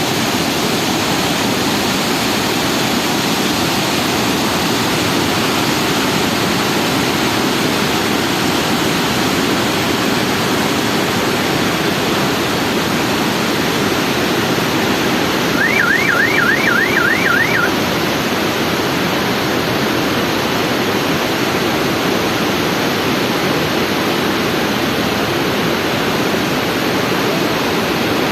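Water spilling over an overflowing dam: a loud, steady rush. About two-thirds of the way in, a high warbling sound sweeps rapidly up and down about seven times over two seconds.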